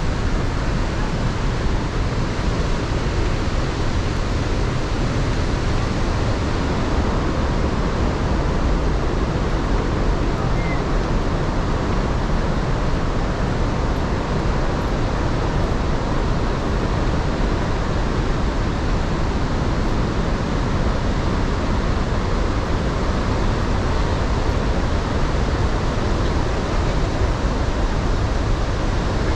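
Steady rush of the Iguaçu Falls: loud, even noise of falling water with no breaks.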